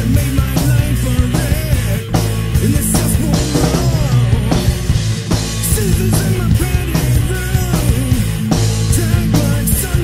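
Post-grunge rock song played by a full band, with a drum kit keeping a steady beat under the guitars.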